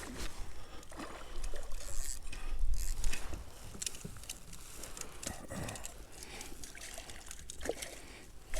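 Water sloshing and small irregular knocks around a kayak, with low wind rumble on the microphone.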